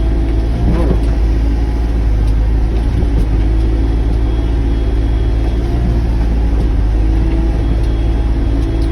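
Sany mini excavator's diesel engine running steadily while digging, a low rumble with a whine above it that shifts in pitch now and then as the machine works.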